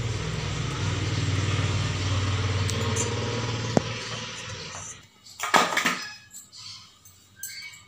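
A low, steady engine hum that fades away about five seconds in. Then a steel spoon clatters against a steel mixing bowl, loudest a little before six seconds in, with a smaller clink near the end.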